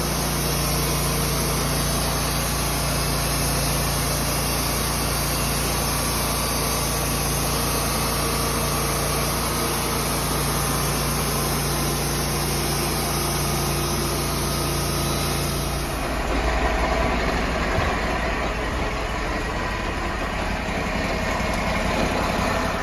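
A steady engine running. About sixteen seconds in, the sound changes abruptly to a rougher, noisier engine sound with more low rumble.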